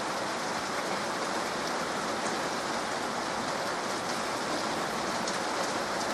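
Heavy rain falling in a steady, even hiss, with scattered close drops ticking faintly.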